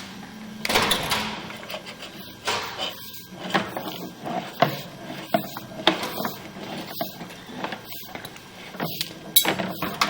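Irregular knocks, clunks and rattles, one or two a second, like equipment being handled.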